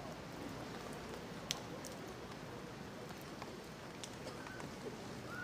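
Ballpark ambience between pitches: a low murmur of a sparse crowd, with a single sharp click about a second and a half in.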